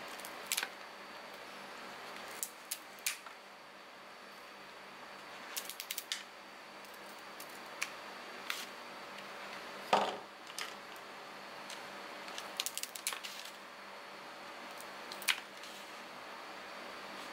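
Small scissors snipping through mantis shrimp shell: irregular sharp clicks and snips, some in quick little clusters, the loudest about ten seconds in.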